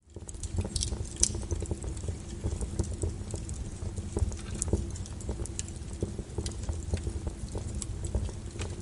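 Wood fire burning in a fireplace, crackling and popping with irregular sharp snaps over a low steady rumble of flame.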